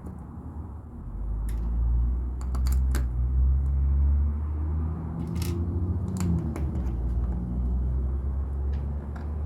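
A low rumble that swells up about a second in and holds for several seconds before easing off, with scattered clicks and rattles of LEGO pieces being handled.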